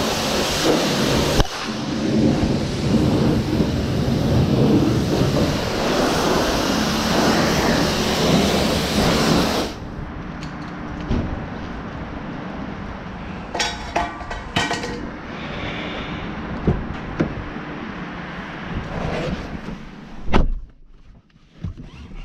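Self-service car wash high-pressure lance spraying water onto a car's body, a loud steady hiss and spatter that cuts off abruptly about ten seconds in. Quieter handling clicks follow, and a car door shuts with a heavy thump near the end.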